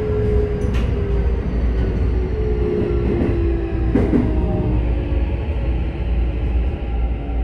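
Keikyu 1000 series train with Mitsubishi IGBT-VVVF control, heard from inside the car: the inverter and traction motor whine falls slowly in pitch as the train slows approaching a station, over the low rumble of wheels on rail. A sharp click comes about a second in and another about four seconds in.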